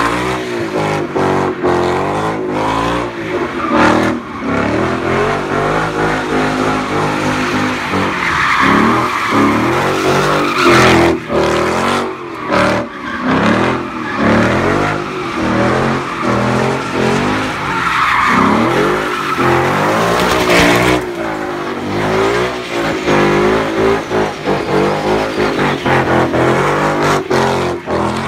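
Car engine revving hard, rising and falling over and over, as its rear tyres spin and squeal through sideshow donuts. The revs keep cutting out for a moment and coming back.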